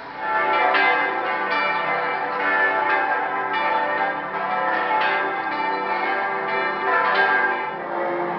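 Several church bells pealing together, strokes overlapping and ringing on in long tones. The peal comes in loud just after the start.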